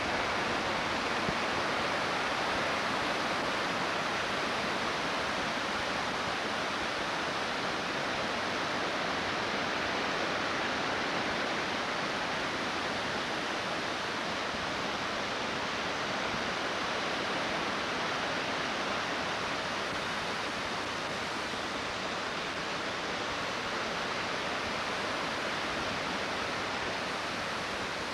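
Creek in flood: fast, high water rushing in a steady, unbroken wash of noise.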